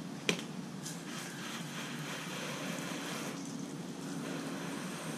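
Water spraying steadily from a hose nozzle onto a motorcycle and wet driveway, with one sharp knock about a third of a second in.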